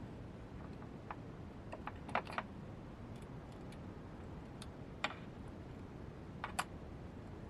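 Scattered sharp metallic clicks and taps of hand adjustments at the tailstock end of a Proxxon PD 250/E mini lathe, with the motor stopped. There is a cluster of clicks about two seconds in, then single clicks about five and six and a half seconds in.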